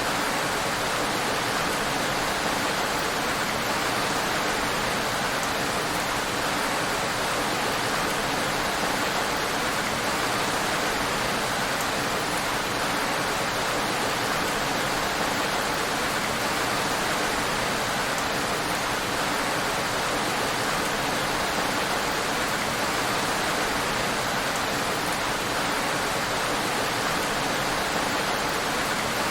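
Heavy rain falling on a road, a steady, even hiss.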